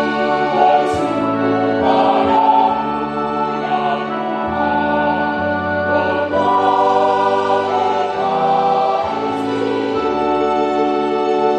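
A mostly female church choir singing a hymn, with held chords and a stepping bass line underneath.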